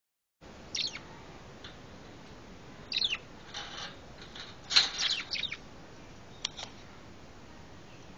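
Lovebird giving short, sharp, high chirps, a few scattered calls with a quick cluster about halfway through.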